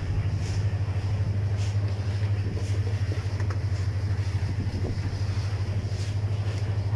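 An engine running steadily at constant speed, a low drone with a fast, even pulse.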